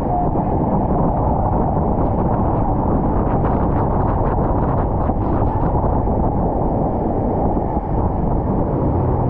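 Open tour boat running fast on the river: steady engine drone and rushing water, with wind buffeting the microphone.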